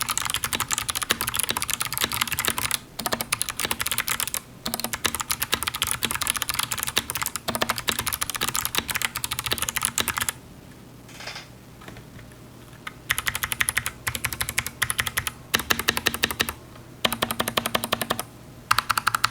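Fast typing on a mechanical keyboard with clicky switches: a dense run of crisp key clicks, broken by a pause of about two seconds a little past halfway, then shorter bursts with brief gaps.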